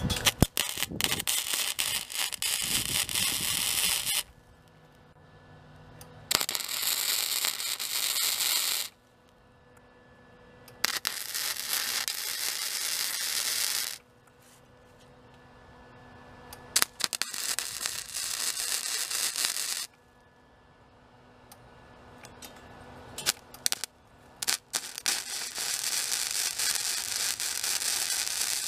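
Wire-feed (MIG) welder arcing on steel, crackling and hissing in five separate runs of a few seconds each, with short pauses between beads.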